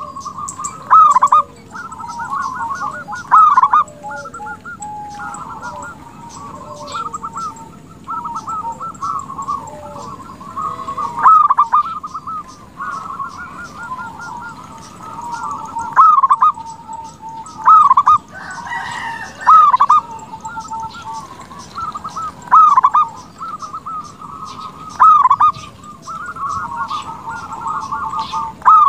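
Zebra dove (perkutut) cooing: rapid rolling series of notes, with a louder call every few seconds.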